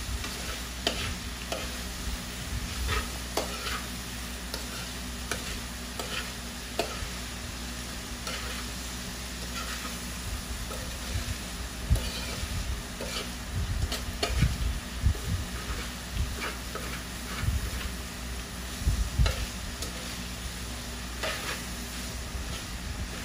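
Diced pork offal sizzling as it is sautéed in a wide steel pan, stirred and scraped with a spoon, with irregular clinks and scrapes against the pan. There are a few dull knocks in the middle.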